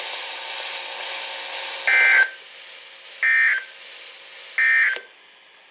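Three short bursts of NOAA Weather Radio SAME digital data, the two-tone warbling end-of-message code, evenly spaced over a faint radio hiss. They mark the close of the weekly test broadcast.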